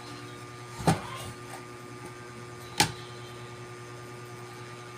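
Steady electrical hum with two sharp clicks, about two seconds apart.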